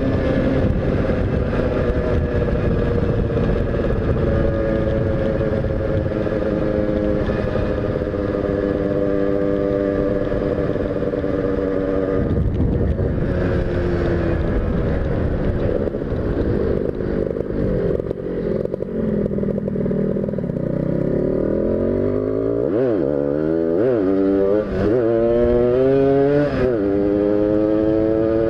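Tuned racing motorcycle engine heard from the rider's helmet under way, with wind noise over the microphone. It runs at steady high revs, drops off about halfway through and falls in pitch, then revs up and down several times and climbs again near the end.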